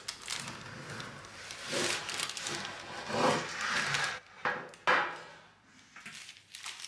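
Parchment baking paper rustling and rubbing against a wooden board as a baked sheet cake is handled and slid into place, with one sharp knock about five seconds in.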